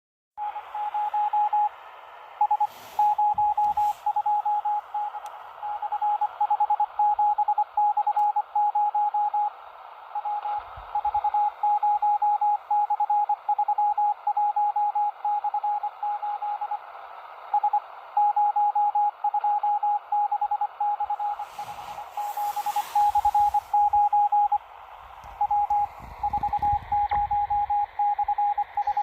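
Morse code received on a Panasonic RF-B45 portable shortwave radio in single-sideband mode: a single mid-pitched beep keyed rapidly on and off over receiver hiss, carrying Russian naval military information. The keying pauses briefly a few times, and short noise bursts break in near 3 seconds and around 22 seconds.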